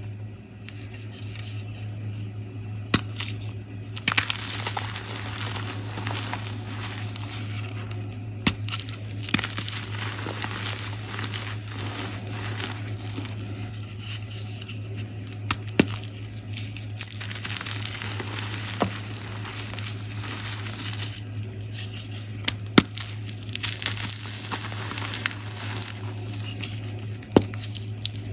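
Hands squeezing and crushing a heart-shaped block of pressed powder in loose powder: continuous soft crunching and crumbling, broken by occasional sharp cracks as the block splits into chunks. A steady low hum runs underneath.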